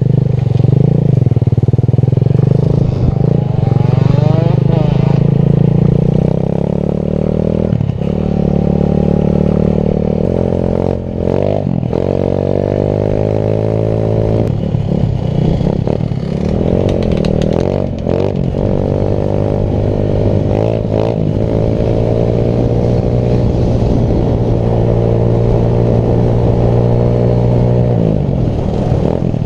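Small single-cylinder engine of a home-built 125cc quad running loud under load as it is ridden, its pitch climbing and dropping several times as the throttle is opened and closed.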